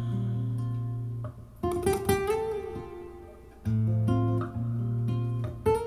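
Acoustic guitar music played back through JBL 4305P active speakers and heard across the room: plucked chords over a deep held bass note, with a new phrase starting about every two seconds.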